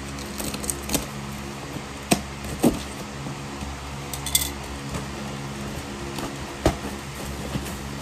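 A taped cardboard box being cut open and handled: a few sharp taps and knocks, about a second in, twice near the 2–3 second mark, and once late on. Underneath runs a steady low hum.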